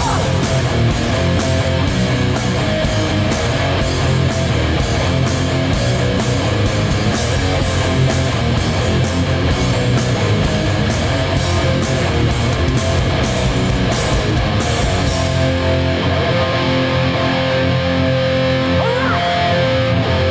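Live hardcore band playing loud, with heavily distorted electric guitars, bass and drums. About fifteen seconds in, the cymbals and drums drop away and the guitars ring on with a held note, near the end of the song.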